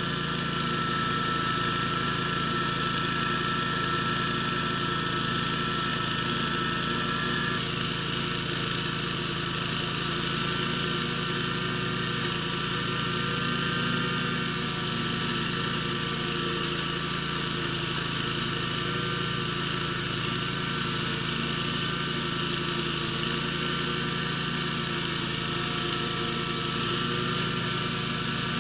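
Scag zero-turn mower engine running steadily under load, with a high whine over it that shifts in pitch about seven and a half seconds in.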